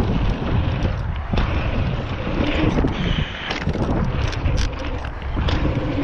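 Wind buffeting an action camera's microphone with a steady low rumble as a mountain bike rolls over a dirt jump line. Tyre noise on dirt and frequent sharp knocks and rattles of the bike over the bumps.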